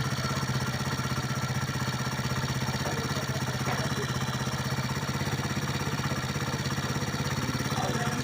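Vehicle engine idling steadily with a fast, even pulse: an engine whose owner says it is making a noise.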